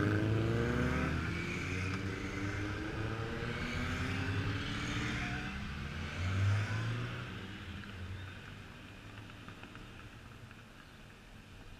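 Motorcycles riding past one after another, each engine swelling and falling in pitch as it goes by. The last one passes loudest about six or seven seconds in, and the engine noise then fades away.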